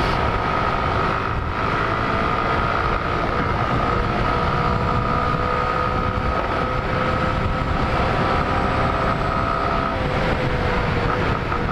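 Small step-through motorcycle engine running at a steady cruise, with wind rushing over the microphone. A steady whine holds its pitch and eases slightly lower near the end.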